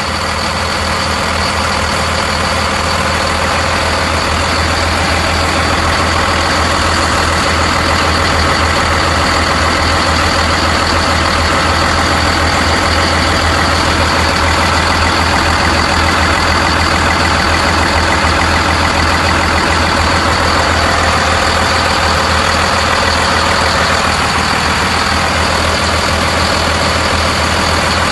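Caterpillar marine diesel engines running steadily under way, heard from inside the yacht's engine room as a loud, even drone with a thin steady high tone over it.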